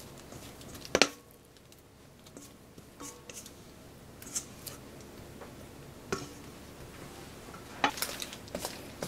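A dough scraper clicking and scraping against a metal mixing bowl as soft risen dough is turned out onto parchment paper. There is one sharp clack about a second in, a few softer clicks and light paper rustles after it, and a cluster of clicks near the end.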